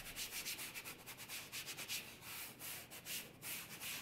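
A bare hand wiping chalk off a blackboard: a run of quick back-and-forth rubbing strokes, several a second, slowing to fewer, longer strokes in the second half.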